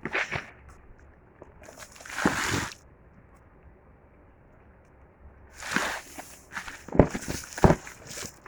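Packaging being handled during an unboxing: several short bursts of rustling, and two sharp knocks near the end.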